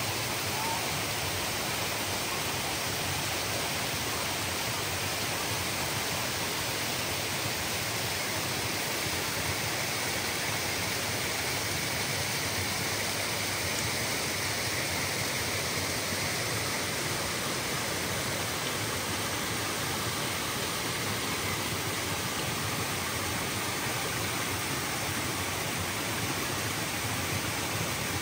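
Shallow rocky stream running steadily over and between boulders and stones, an even rushing of water with no change throughout.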